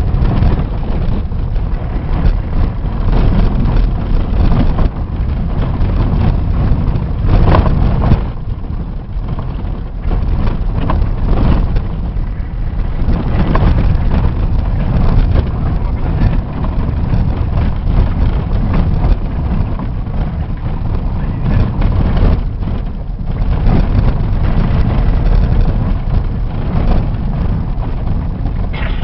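A vehicle on the move: steady, loud engine and road rumble with no breaks.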